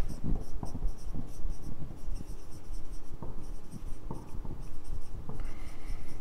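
Dry-erase marker squeaking and scratching across a whiteboard as words are written, in a quick run of short strokes with small taps between letters.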